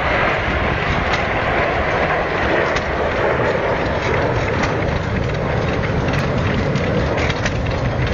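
Red Arrows' BAE Hawk jet engines overhead: a loud, steady rushing noise with no break.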